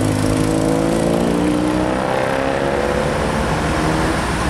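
Road traffic: an engine rising slowly in pitch as it accelerates for two to three seconds, then fading, over a steady low engine rumble as a box truck approaches.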